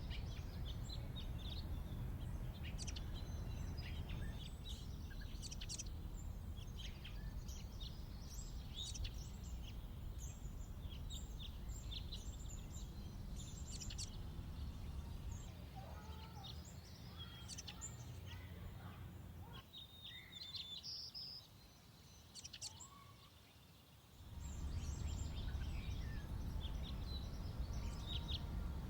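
Many small wild birds chirping and twittering in quick, scattered calls over a steady low background rumble. The rumble drops away for a few seconds about two-thirds of the way through, leaving only faint chirps, then comes back.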